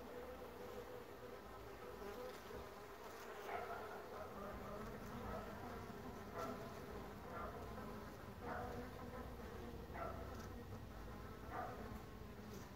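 Honeybees buzzing at the hive entrance: a steady hum from the bees clustered there, with a bee flying close past about five times, each a brief louder buzz.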